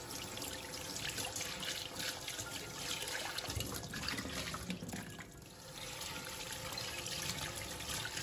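Kitchen tap running into a stainless steel sink while a steel pot and then a ceramic bowl are rinsed under the stream. The water sound dips briefly about five seconds in.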